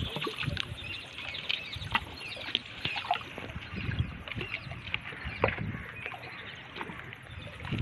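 Lake water lapping and splashing, with scattered sharp taps and clicks throughout.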